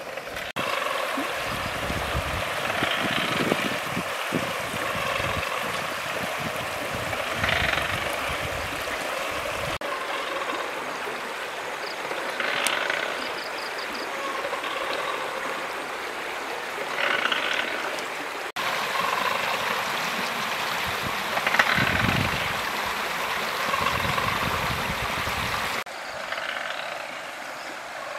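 River water flowing steadily, with a few short, louder sounds on top every few seconds; quieter near the end.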